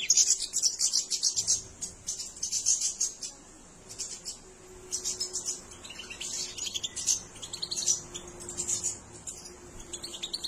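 Young European goldfinches chirping and twittering in quick runs of high, rapid notes, with short pauses between the bursts.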